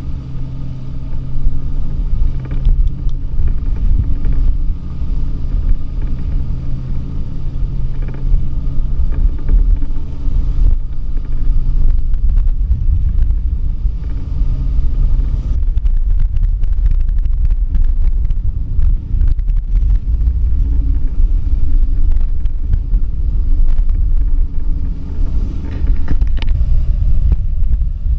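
Storm-force wind of about 45 to 55 knots buffeting a stern-mounted GoPro's microphone as a loud, constant low rumble, mixed with waves rushing and breaking along a sailing yacht's hull. A steady low hum runs underneath for the first half and fades out about halfway through.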